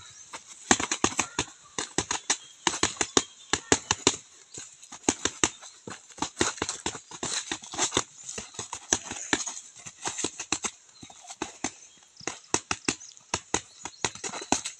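Boxing gloves punching a tree trunk in flurries, a fast run of sharp knocks several a second, with short breaks between flurries.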